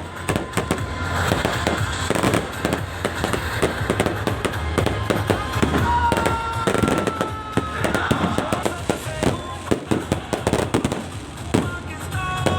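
Aerial fireworks display: a dense, unbroken run of bangs and crackles.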